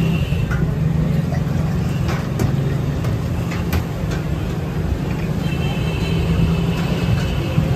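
Steady low engine hum and rumble of street traffic, with a few sharp clinks of glass tumblers being handled on a steel counter about two and four seconds in.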